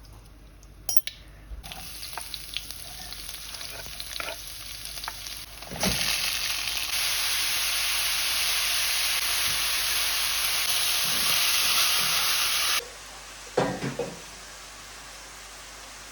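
Food sizzling in hot oil in a pan. The sizzle grows much louder after a knock about six seconds in, then stops abruptly, followed by a few clatters of cookware.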